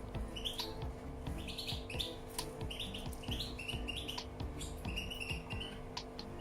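Canary chirping: a run of short, high chirps, several a second, over a faint steady hum.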